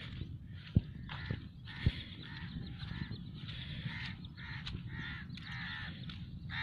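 Birds calling over open marshland: a chorus of harsh, crow-like cawing and chatter repeating throughout. Two sharp knocks break in about a second and two seconds in.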